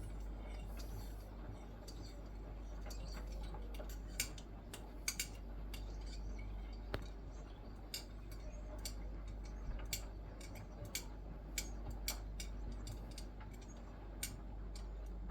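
Hoover H-Wash 300 Pro washing machine running a wash cycle: a low steady hum with irregular sharp ticks and clicks, about fifteen of them.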